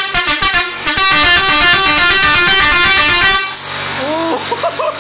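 Arab-style multi-trumpet musical air horn on a tractor playing a fast stepping tune of short notes, then a louder, denser run of notes that cuts off suddenly about three and a half seconds in. A steady low hum carries on after it stops.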